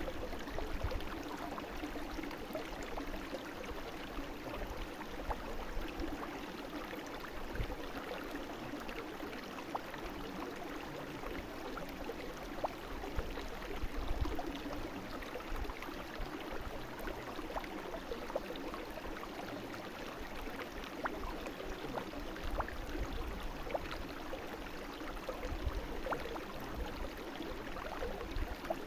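Brook water flowing steadily, with faint little splashes and trickles scattered through it.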